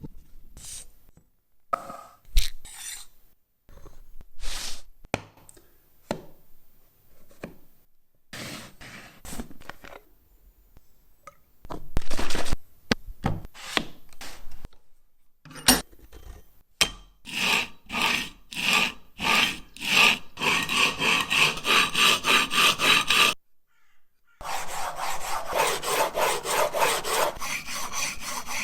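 Hand plane iron rubbed back and forth on a sharpening stone, in regular strokes about two a second. The first half holds only scattered clicks and knocks; after a short pause the strokes come faster and closer together near the end.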